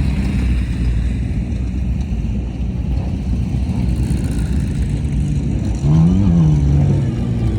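Off-road race vehicle engines rumbling, with one engine note rising sharply and falling back about six seconds in as a car revs or passes.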